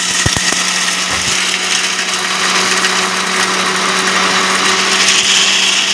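Electric mixer grinder running with dried banana peels in its stainless steel jar, grinding them to powder. A loud steady motor hum with a rushing noise, a few knocks in the first second, and a sudden cut-off when it is switched off.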